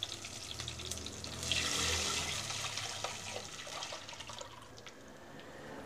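Tamarind-and-chilli gravy being poured from a steel vessel into a clay pot of sautéed onions and tomatoes: a splashing pour that swells about a second and a half in and tapers off.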